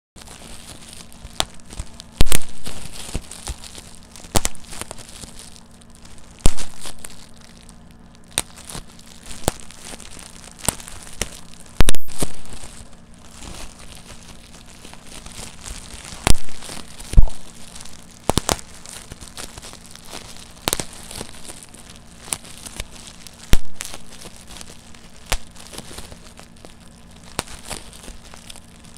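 Bubble wrap being popped between the fingers: sharp single pops at irregular intervals, roughly one every second or two, with the plastic crinkling in between.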